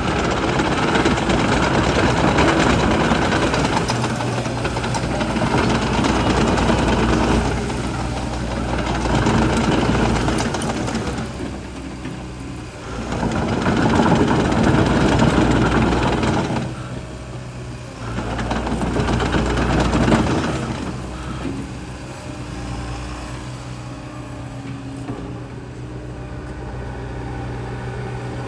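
Liebherr R914 Compact excavator's diesel engine running, swelling louder several times with a heavy rushing noise over its steady hum, then settling to a quieter, even run over the last several seconds.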